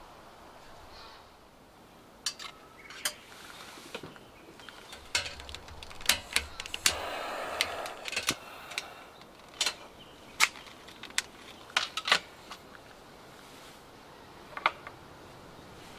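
Scattered sharp clinks and clicks of camp cookware and utensils being handled, with a noisier stretch lasting about a second around seven seconds in.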